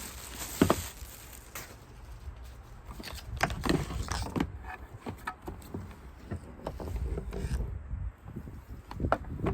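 Vicks warm mist humidifier and its packaging being handled: irregular clicks, knocks and light rustling, with a sharp knock a little over half a second in.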